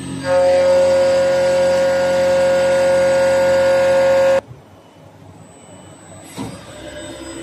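CNC lathe turning a steel shaft, the cut giving a loud, steady, high-pitched whine that stops suddenly about four seconds in. A quieter machine hum follows, with a short click near the end.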